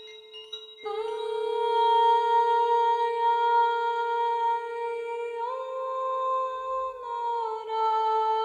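A woman humming a long held note, stepping up in pitch about five seconds in and back down a couple of seconds later.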